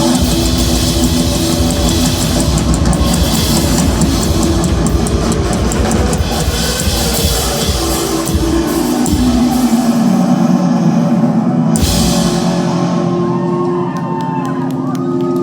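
Live rock band playing loudly with drum kit and cymbals. About twelve seconds in the drums stop and held notes ring on, the close of the song.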